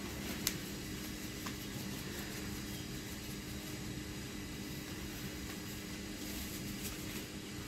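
Steady low background hum and noise, with two faint clicks about half a second and a second and a half in.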